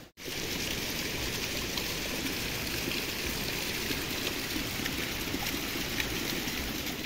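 Steady rush of water flowing through a small hot-spring pool.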